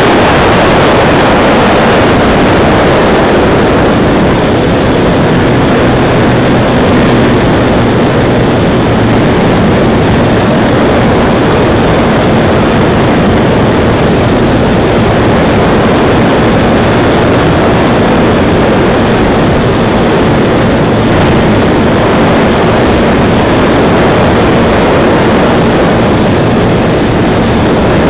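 Multiplex FunCub model plane's electric motor and propeller running steadily, close to an onboard camera, mixed with heavy wind rush from flight, with a faint steady hum underneath.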